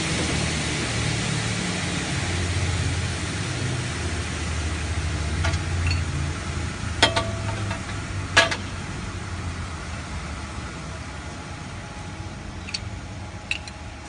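Aluminium-profile double head cutting saw running with a steady low hum that slowly fades. A few sharp metallic clicks sound over it, the two loudest about 7 and 8.5 seconds in.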